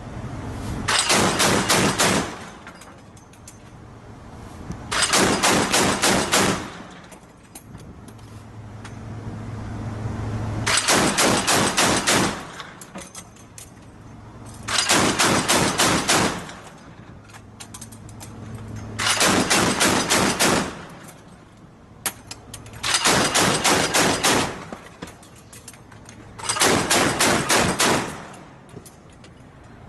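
Automatic weapon firing on full auto in seven bursts of rapid shots, each a second and a half to two seconds long, about every four seconds. A low hum runs between the bursts.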